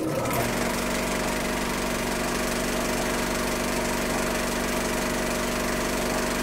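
Film projector running: a steady mechanical whirr with a constant hum, unchanging throughout.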